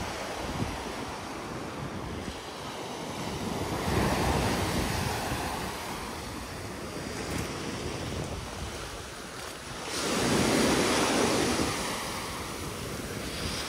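Sea surf washing onto the shore, swelling up twice (about four seconds in and again about ten seconds in), with wind rumbling on the microphone.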